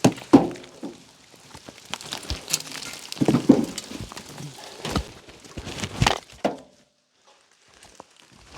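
Ice breaking off ice-coated tree branches and falling, an irregular series of sharp cracks, clatters and thuds, some with a brief glassy ring. It drops out almost entirely about seven seconds in.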